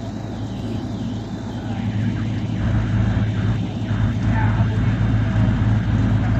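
Tow truck's engine running steadily with a deep hum, picking up and getting louder about two and a half seconds in.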